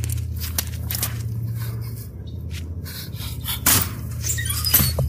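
Film chase soundtrack: a low steady drone under irregular thuds and scrapes of running footsteps, with one louder hit a little past halfway.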